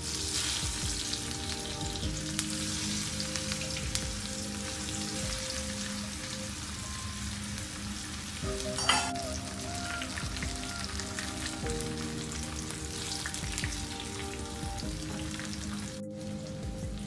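Batter- and breadcrumb-coated onion rings deep-frying in hot oil in a wok, a steady bubbling sizzle, with one short sharp click about nine seconds in. Soft background music plays underneath.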